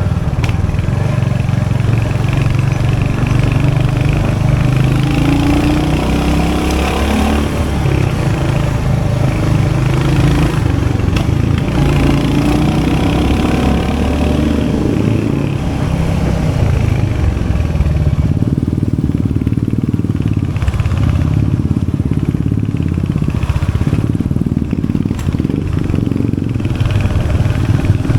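Royal Enfield Hunter 350's 349cc single-cylinder J-series engine running steadily through its exhaust. The pitch rises and falls over the first half, then settles lower and duller for the last ten seconds.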